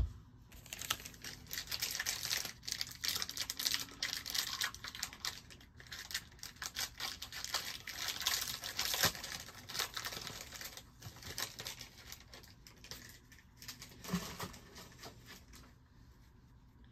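Crinkling and tearing of a trading card pack's plastic wrapper being ripped open and handled, with many small crackles and clicks; it dies down near the end.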